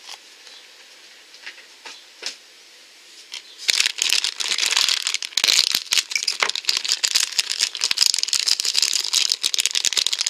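A thin plastic blind bag being crinkled and pulled open by hand. After a few soft clicks it turns to a dense, steady crackle about a third of the way in.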